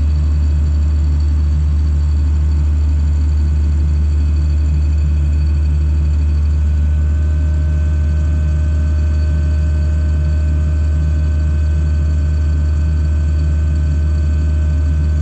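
Tractor engine running at a steady speed, heard from inside the cab: a loud, even low drone that does not change.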